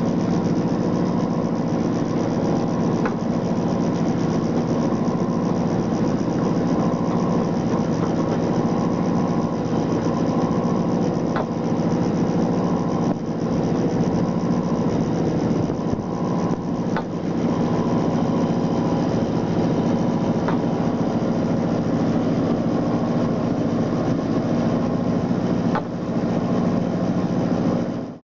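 A salmon purse seiner's engine and deck machinery running steadily, heard from the working deck, with a few faint knocks over the drone.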